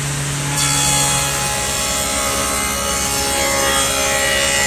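Table saw with a stacked dado blade spinning. About half a second in, the blade bites into the edge of a board and cuts steadily with a loud whine. This is the second pass, after the board is flipped, that forms the tongue of a tongue-and-groove joint.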